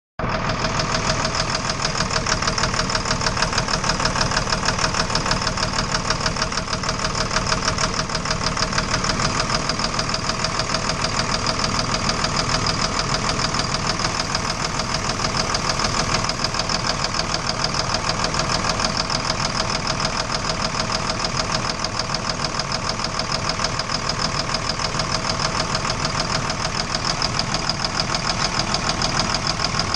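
Engine running steadily at a constant speed with a fast, regular knock in every few strokes of its running; it is the engine knock that gives the recording its title.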